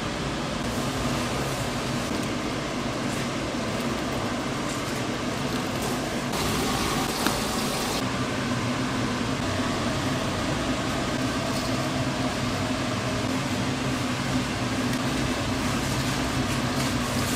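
Steady hum and hiss of a running fan, with a louder hiss for under two seconds about six seconds in.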